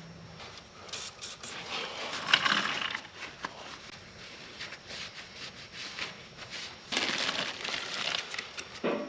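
Hand sanding or scuffing a surface: irregular spells of rubbing and scraping strokes, with short pauses between them.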